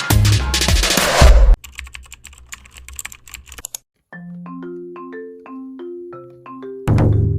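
Background music: an electronic track with a heavy beat drops out about a second and a half in to a quiet break of fast ticks. A short melody of single struck notes follows, and the full beat comes back near the end.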